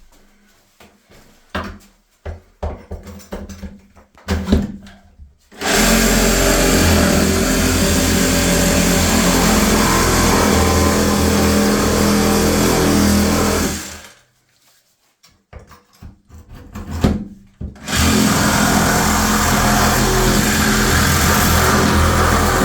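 Milwaukee M18 cordless power tool cutting into the ceiling, run in two long steady bursts with a short pause between them, after a few seconds of handling knocks and clicks.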